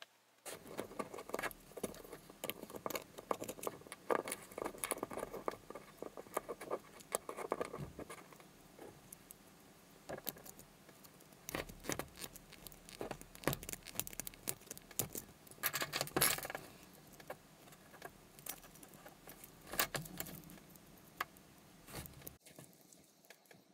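Treble hooks, their rings and a metal tool clinking and clicking as the hooks are fitted to the screw eyes of a cork popper lure: a dense run of light metallic clicks, with a louder cluster about two-thirds of the way through, stopping just before the end.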